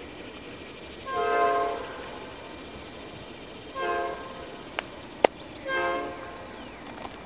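Nathan P5 five-chime air horn on an NS C44-9W diesel locomotive sounding three separate blasts: the longest about a second in, a short one near the middle, and another a little before the end. Two sharp clicks come between the second and third blasts, the second of them louder.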